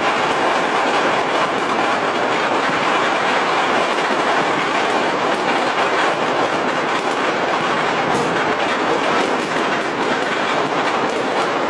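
Dense, unbroken crackle and popping of countless firecrackers and fireworks going off all over a city at once, merging into a steady din.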